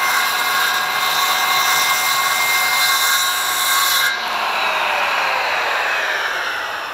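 Skilsaw circular saw cutting through 3/4-inch PVC pipe for about four seconds. The blade then winds down with a falling whine once the cut is through.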